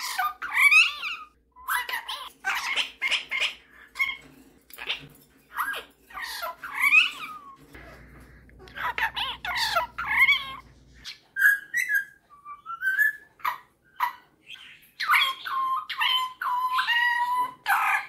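Superb parrot chattering in short bursts of calls and gliding whistles, with talk-like babble mixed in. Near the end comes a run of steady whistled notes stepping from pitch to pitch, like a sung tune.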